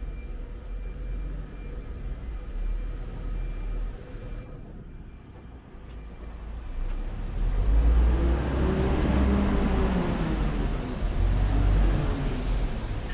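Low street-traffic rumble. From about seven seconds in, a city bus's engine grows loud as the bus pulls past close by, its pitch rising and then falling.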